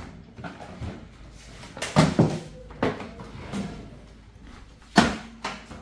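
Sharp knocks and clatters from the microwave oven being handled during reassembly. Several separate impacts, the loudest about two seconds in and again about five seconds in, with smaller knocks between.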